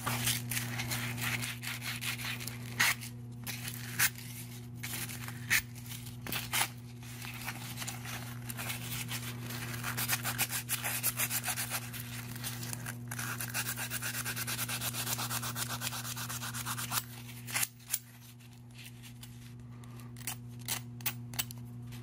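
Emery cloth rubbed back and forth along a gas furnace flame sensor's metal rod: a fast, scratchy rubbing with a few sharper clicks, cleaning the rod. The rubbing eases off near the end.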